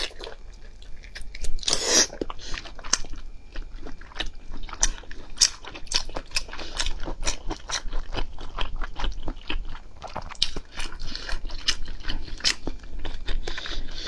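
Close-miked chewing of raw salmon sashimi: wet mouth sounds and lip smacks as many short, sharp clicks, with a louder mouth sound about two seconds in.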